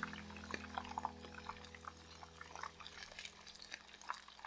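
Freshly deep-fried chicken karaage crackling faintly as it drains on paper towel: many small, irregular pops and ticks over a faint steady hum.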